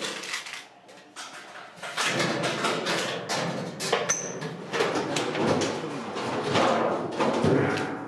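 Stainless steel wash tub and its top plate clattering and scraping against the thin sheet-metal cabinet as the tub is lowered and settled into place. There is a dense run of rattling knocks from about two seconds in and a brief high squeak of metal on metal about four seconds in.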